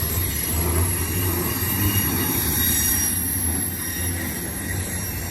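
Intermodal freight train's container cars rolling past: a steady rumble of steel wheels on rail with thin, high-pitched wheel squeal over it, easing slightly after about four seconds.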